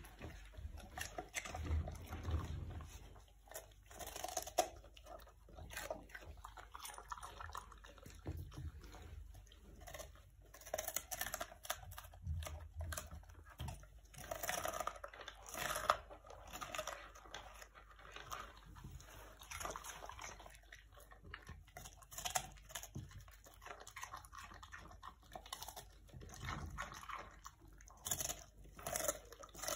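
Chocolate Labrador chewing and biting into a raw cabbage leaf, with irregular wet crunches.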